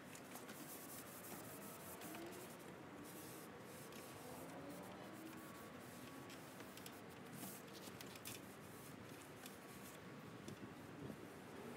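Faint rubbing of a tack cloth wiped over a sanded teak tabletop, with many small crackles from the cloth, as sanding dust is lifted before oiling.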